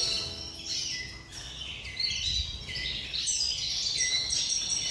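A caged finch singing a continuous twittering song of quick, high notes.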